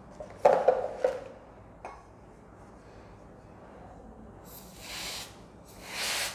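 A few clattering knocks of things being handled on the counter about half a second in, then an aerosol can of chocolate freeze spray hissing twice in short bursts through its thin straw near the end, chilling the joint of a chocolate ball so it sets.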